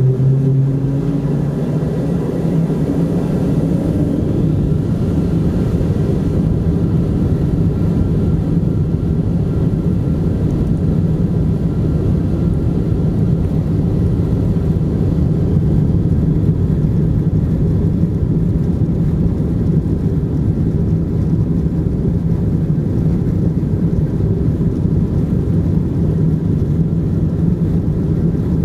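A Boeing 747-200's jet engines running at taxi power, heard inside the cabin as a steady low rumble. A low hum fades out over the first few seconds.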